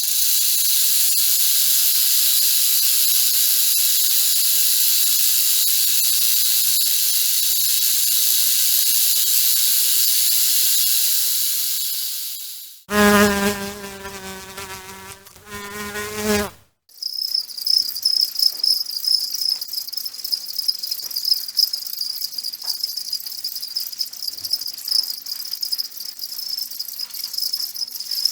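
A dense, high buzzing insect chorus that cuts out about twelve seconds in. A low, pitched droning call with a rich, slightly wavering tone follows for a few seconds. Then a cricket trills steadily on one high, pulsing note.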